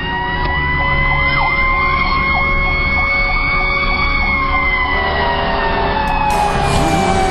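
Fire truck siren sounding, a wail that slowly rises, holds, then falls away over the last few seconds. A second, faster siren cycles up and down about twice a second under it. The truck's engine rumbles steadily beneath both.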